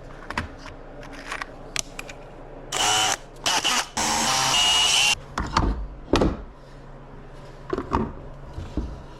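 Power drill running in three short bursts about three seconds in, the last lasting about a second, among light knocks and clatter of wood being handled.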